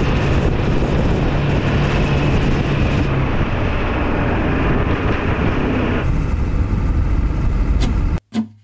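1996 Ford F350's 7.3 Powerstroke diesel drones under loud road and wind noise as the truck drives a snow-packed highway. The noise shifts twice, cuts off abruptly about eight seconds in, and strummed acoustic guitar starts at the very end.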